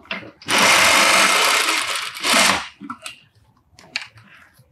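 Industrial straight-stitch sewing machine running at speed, stitching a pocket-bag seam through cotton fabric: one fast run of about two seconds, then a short second burst, followed by a few faint clicks.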